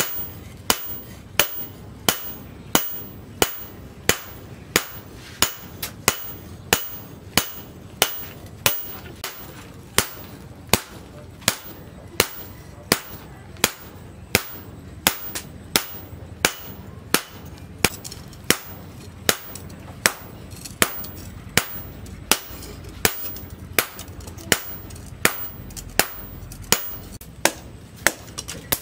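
Hand hammer forging a red-hot steel cleaver blade on a cylindrical metal post anvil: steady, evenly spaced blows about one and a half a second, each a sharp clang with a brief ring.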